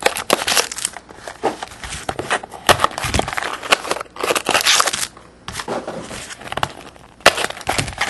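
Plastic shrink-wrap crinkling and a cardboard trading-card box being handled and pried open, in irregular rustles with sharp clicks and crackles.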